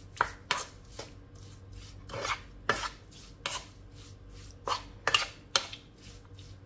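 A wooden spoon stirs diced pork cubes around a nonstick frying pan, mixing in the seasoning. About ten irregular scraping and clacking strokes, roughly one every half second to second.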